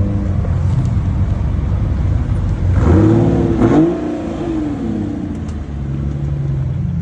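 Car engines running as cars roll past, with one engine revving up and falling back about three seconds in.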